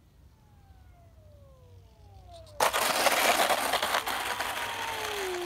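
E-flite 64mm electric ducted-fan F-16 Falcon landing. The fan's whine falls steadily in pitch on the approach. About two and a half seconds in, the jet touches down on the asphalt road with a sudden loud, rough rushing noise of the airframe rolling over the pavement, which fades as it slows while the fan whine winds down near the end.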